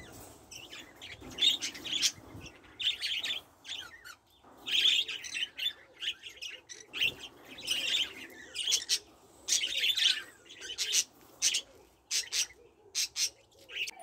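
A flock of budgerigars chirping and chattering in an aviary, with many short high chirps coming in clusters every second or so.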